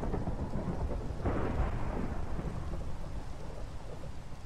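Thunder rumbling over steady rain. The rumble swells about a second in and then slowly fades.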